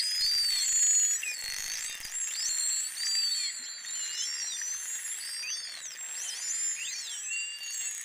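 False killer whales whistling underwater: many high whistles that rise, fall and loop, overlapping one another throughout, from the pod.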